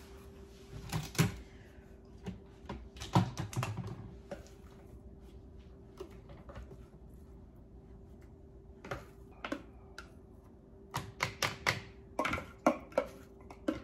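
Plastic clicks, knocks and scrapes as a spatula scrapes ground horseradish out of a plastic food processor bowl and into a plastic canning funnel on a jar. The clicks come in scattered clusters, thickest near the end.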